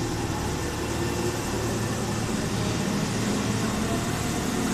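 Tobu 8000 series electric commuter train starting to pull away from the platform: a steady low hum from its rheostat-controlled DC traction motors and running gear, growing gradually louder as it gathers speed.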